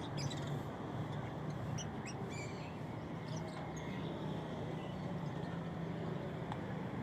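Birds giving short, scattered chirps over a steady low hum of street ambience.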